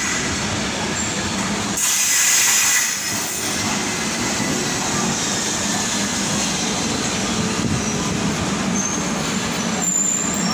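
Rio Metro subway train pulling into an underground platform, its wheels and running gear making a continuous rumbling rush as the cars pass. About two seconds in there is a louder, hissing rush lasting about a second.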